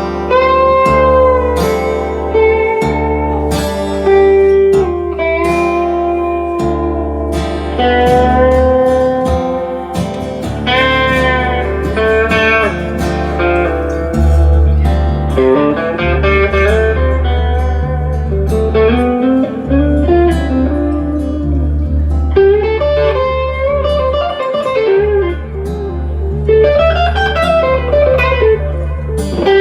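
Live band instrumental break: electric lead guitar soloing with bent, sliding notes over a steady bass line and drums.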